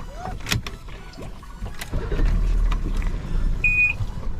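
Boat engine idling, with water and wind noise around the hull; the low rumble grows stronger about halfway through, with a few light knocks and one short high beep near the end.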